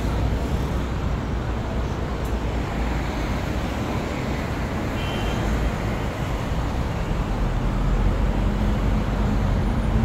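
City street traffic noise: a steady rumble of passing vehicles, with a low engine hum coming up and growing a little louder near the end.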